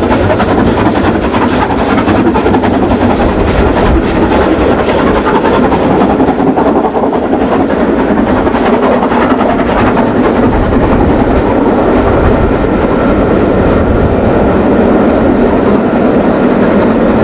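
Royal Scot class three-cylinder 4-6-0 steam locomotive 46115 working hard with a heavy passenger train, its exhaust and the running of the coaches heard as a steady, loud rumble mixed with wind buffeting the microphone.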